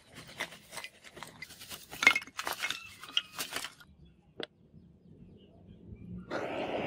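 Lumps of charcoal clinking and clattering onto bricks and one another as they are tipped out of a bag into a brick forge trough, a quick irregular run of sharp clinks. Near the end a steady rushing noise starts as the fire catches in the charcoal.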